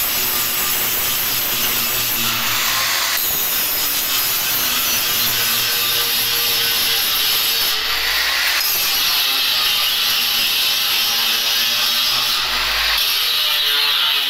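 Handheld angle grinder grinding a steel railing post, a steady loud grinding that shifts in tone a few times as the disc bears on the metal.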